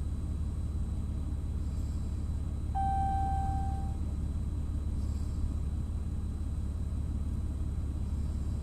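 A steady low rumble with a faint, steady high-pitched whine. About three seconds in, a single beep sounds for just over a second.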